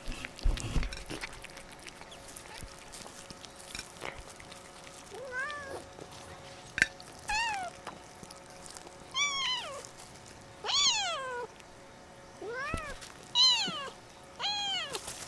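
Domestic cats meowing repeatedly around their food: about eight short meows, each rising then falling in pitch, coming every second or two through the second half. A few knocks and a thud sound about half a second in.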